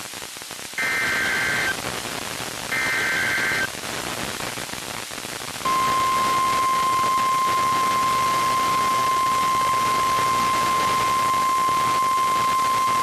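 NOAA Weather Radio emergency alert: the last two of three SAME header data bursts, each about a second of harsh digital tones, then over radio static the steady 1050 Hz warning alarm tone starts about six seconds in and holds to the end. The tone marks a warning about to be broadcast, here a severe thunderstorm warning.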